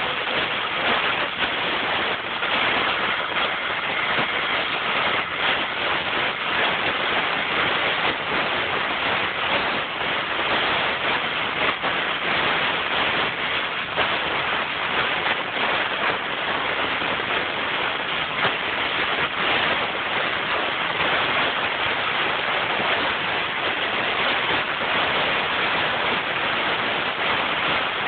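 Oxy-fuel cutting torch hissing steadily as its flame and oxygen jet cut through structural iron.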